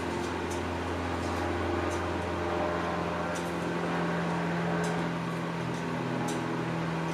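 A steady low hum made of several held tones, with a few faint sharp clicks now and then.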